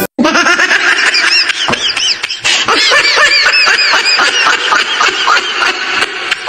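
High-pitched laughter: a rapid run of short squealing rises and falls, repeated without a break.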